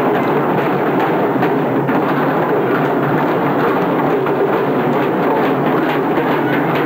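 Several side drums beaten together by marching drummers, in a dense, steady wash of sound with many overlapping strokes.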